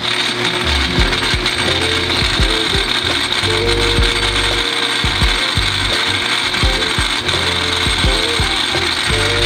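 Background music with a steady beat: clicking percussion over a bass line and a simple stepping melody.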